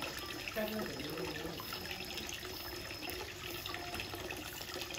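Water running steadily down a metal trough, a continuous trickling wash.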